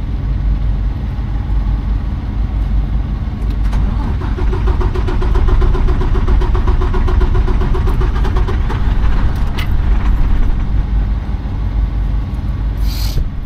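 Diesel semi-truck engine trying to start and run while starved for fuel, with a rapid pulsing that swells in the middle and then eases. A short hiss comes near the end.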